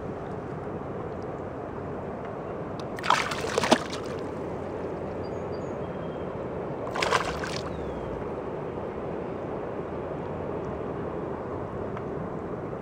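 Hooked northern pike thrashing at the water's surface on a fishing line: two short bursts of splashing, about three seconds in and again about seven seconds in, over a steady background hiss.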